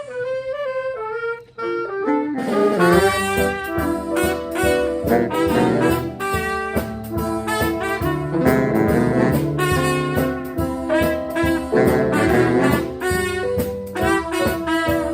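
Live swing band playing an instrumental passage with horns. A single melodic line sounds alone for about the first two seconds, then the full band comes in.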